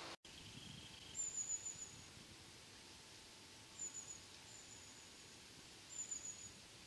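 Four faint, thin, very high-pitched bird calls, each dropping a little in pitch, the first and longest lasting about a second.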